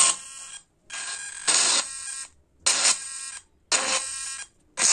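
Small test speaker driven by a failing Bluetooth speaker amplifier board playing music that comes out distorted and tinny and keeps cutting out, in short bursts about once a second with silent gaps between. The repairer blames a sound IC on the board that is close to failing.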